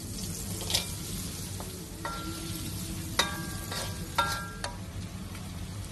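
Clams being stir-fried in a pan: a steady sizzle under about six sharp clinks of a metal utensil against the pan, the louder ones ringing briefly.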